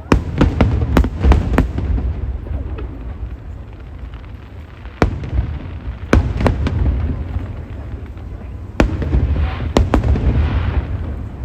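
Aerial fireworks bursting: a quick cluster of sharp bangs in the first second or so, then further bangs about five, six and nine seconds in. A low rumble carries on between them, and a hiss rises near the end.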